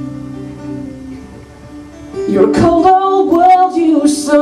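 Live acoustic band music: a held guitar chord rings and fades, then about two seconds in a voice comes in singing loudly over the strummed guitar.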